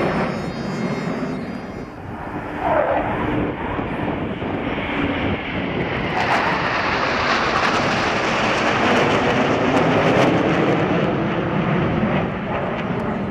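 Jet noise from a formation of nine Eurofighter Typhoons and their EJ200 turbofans flying past overhead: a steady rushing sound that grows louder past the middle and eases a little near the end.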